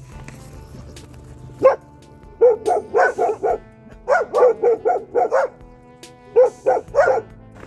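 Dog barking in quick runs of several barks each: a single bark, then runs of about five, six and three, over background music.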